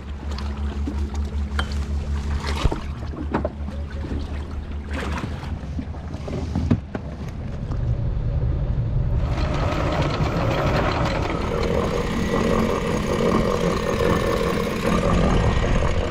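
A sailboat's engine running steadily with a low hum, with a few sharp knocks in the first seven seconds. From about nine seconds in, a broad rush of wind and water rises over it.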